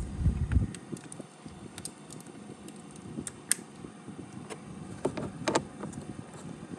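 Scattered light clicks and clinks of metal hand tools: a 10mm socket on a swivel and extension being fitted and worked onto a bolt.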